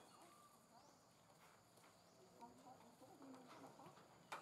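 Near silence: faint outdoor ambience with a few soft, brief animal or bird calls, and one sharp click near the end.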